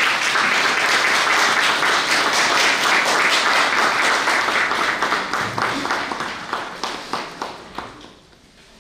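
Audience applause, a dense patter of many hands clapping, thinning out into a few separate claps and dying away near the end.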